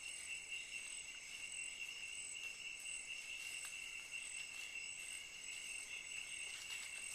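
Insects in the rainforest chirring continuously: a steady, unbroken high drone with two pitch bands, one high and one higher.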